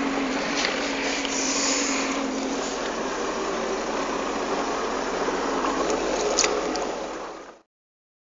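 Sea-Doo GTX155 jet ski's four-stroke Rotax three-cylinder engine idling steadily, with water noise around the hull. The sound cuts off abruptly about seven and a half seconds in.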